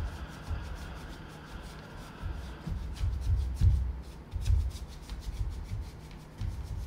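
Bare feet stepping and sliding on a wooden stage floor: irregular dull thuds with rubbing between them.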